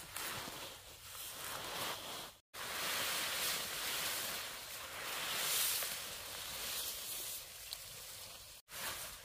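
Leaves and stalks rustling as fodder plants are cut and handled, a hiss that swells and fades. It drops out abruptly twice, about two and a half seconds in and near the end.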